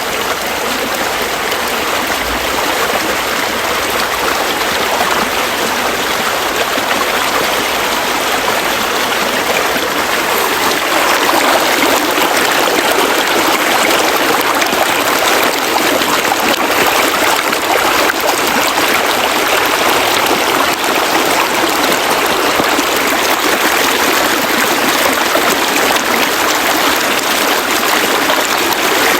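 Stream water flowing, a steady rushing that grows a little louder about eleven seconds in.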